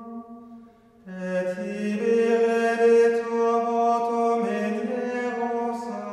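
Slow vocal chant of long held notes, the pitch stepping every second or two; one phrase fades out and a new one begins about a second in.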